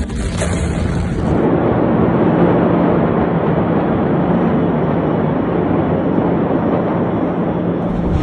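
Loud, dense roar of a large explosion, building about a second in and then holding steady.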